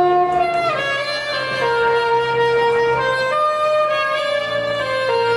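Saxophone playing a slow melody of long held notes, moving to a new note every second or so.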